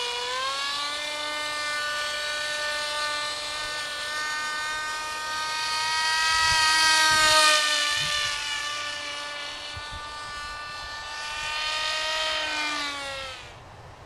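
Stock brushless electric motor and propeller of a Dynam EZ Hawk RC plane whining steadily in flight. It grows louder as the plane passes close about halfway through, then winds down and cuts off near the end.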